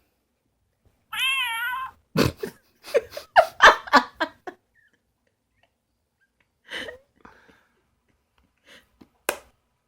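A recorded cat meow played by a sound chip in the opened Exploding Kittens game box: one wavering meow about a second in, then a couple of seconds of louder, jumbled cat-like sounds, and a few faint clicks near the end.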